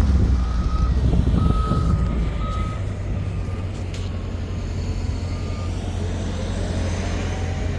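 Wheel loader's diesel engine running steadily while its backup alarm sounds a series of high beeps as the loader reverses.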